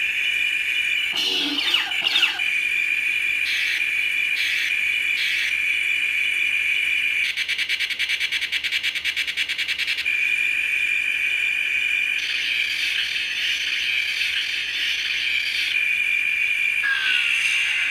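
Electronic alarm sounder giving a continuous high-pitched tone that switches between sound-effect modes: steady, a rapid even pulsing for a few seconds in the middle, and a short falling glide near the end.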